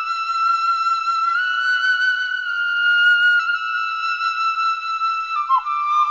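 A flute playing a slow, high melody of long held notes, stepping to a new note a few times, with a quick downward bend of pitch near the end.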